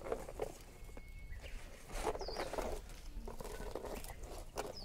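Leaves and grass rustling and crackling in irregular clusters as hands work through low undergrowth.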